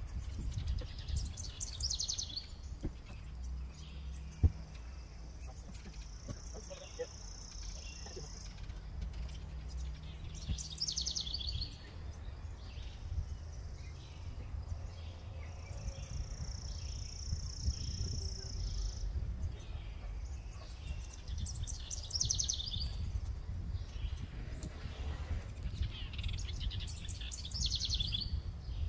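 Birds singing outdoors: a high trilling phrase that comes back four times, and two long high held notes, over a steady low rumble. A single sharp knock sounds about four and a half seconds in.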